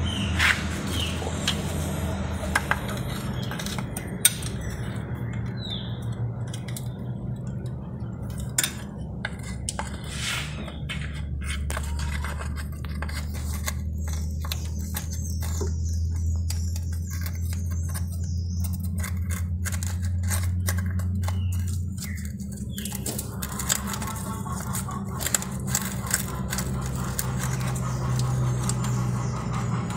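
Scattered metallic clicks, clinks and scrapes of a hand wrench working a bolt on the underside of a car engine, over a steady low hum.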